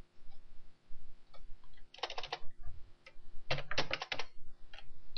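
Typing on a computer keyboard: scattered keystrokes, with two quick runs of keys about two seconds in and again about three and a half seconds in.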